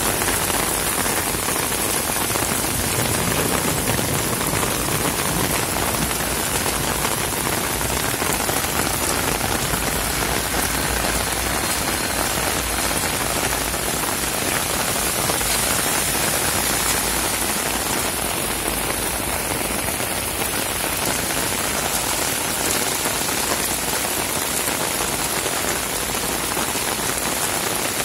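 Heavy rain pouring steadily onto a flooded street.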